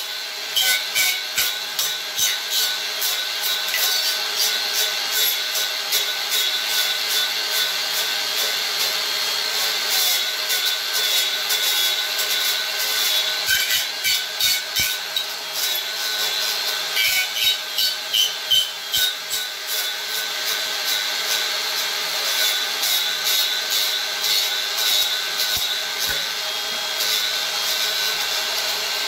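Angle grinder with a chainsaw carving disc hollowing out an ash bowl blank: a steady motor whine under rough, rasping cutting that swells and eases as the disc is fanned back and forth through the wood, with a spatter of sharp ticks from flying chips.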